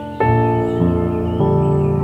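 Background music: soft, sustained keyboard-like chords, with new notes coming in about every half second.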